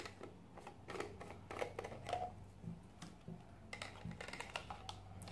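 Faint, scattered clicks and light taps of a Medela manual breast pump's hard plastic parts being handled.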